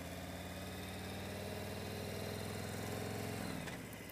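Motorcycle engine running under way, its note rising gently, then falling away about three and a half seconds in. Wind and road noise run underneath.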